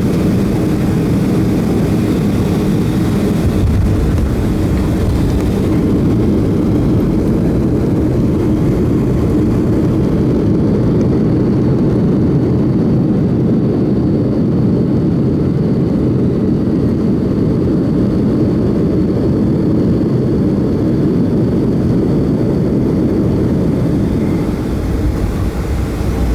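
Boeing 757 cabin noise while the jet slows on the ground after landing: a loud, steady low rumble of engines and rolling. The higher hiss drops away about six seconds in and again about ten seconds in.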